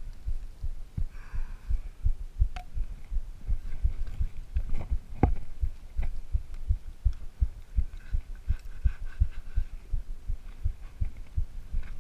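Short, low thuds about three a second, the jolts of a carried camera and the footfalls of someone walking over rough, dry ground, with a couple of sharper clicks.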